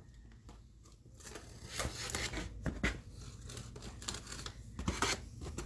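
Cardboard shipping box being cut open: irregular short scratchy strokes and taps as the packing tape across the top is slit. They start about a second and a half in, after a quiet start.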